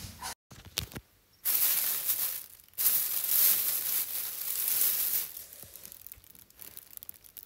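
Clear plastic packing film crinkling and rustling in two long, loud bouts starting about a second and a half in, then quieter scattered rustles toward the end.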